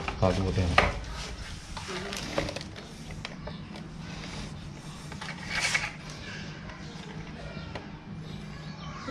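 Plastic EV charger and its plastic wall bracket being handled as the charger is seated and the bracket's key lock is worked: scattered light clicks and rubbing, with a louder scrape about six seconds in.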